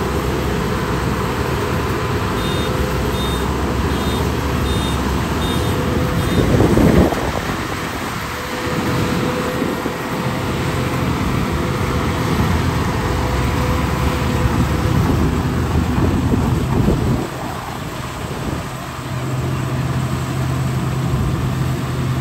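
Zoomlion FH100E rice combine harvester running steadily while cutting and threshing rice, its engine and machinery making a constant drone. It surges loudly for a moment about seven seconds in, and a string of faint high beeps sounds a few seconds in.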